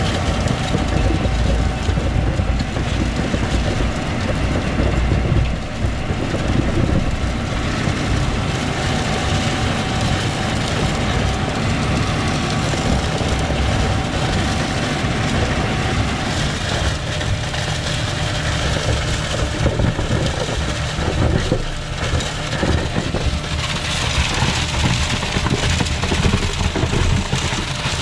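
Concrete boom pump truck running under load, pumping concrete through the end hose into a drilled pier hole. Its engine makes a steady low rumble, broken by repeated knocks as the pump strokes.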